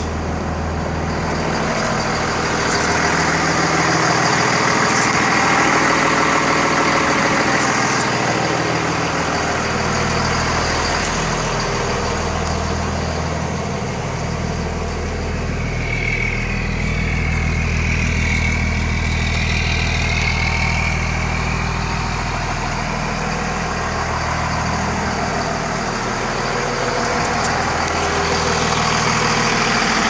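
Cummins diesel engine of a 2002 Blue Bird transit bus idling steadily, with a higher whine that swells and fades around the middle.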